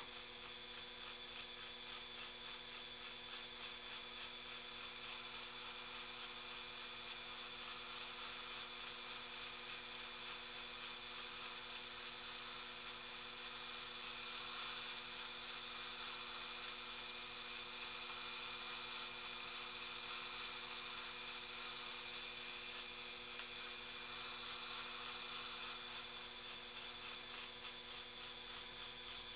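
Small electric motor running steadily with a buzzing hum and a high hiss. It grows a little louder through the middle and eases off near the end.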